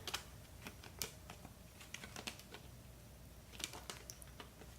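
Faint, scattered clicks and taps of Blu-ray discs being worked off the long plastic hub clasps inside a steelbook case, with a sharper click about a second in and a few more near the end.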